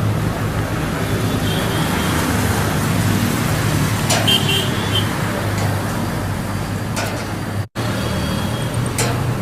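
Steady road-traffic noise with a low engine hum, broken by a brief dropout near the end.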